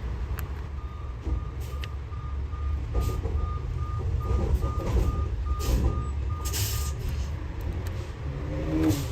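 A vehicle's reversing alarm beeping in a steady series, about two beeps a second, stopping about seven seconds in, over the low rumble of heavy traffic and a truck engine.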